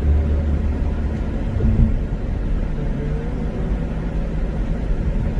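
Steady low road and engine rumble inside a car's cabin as it drives along.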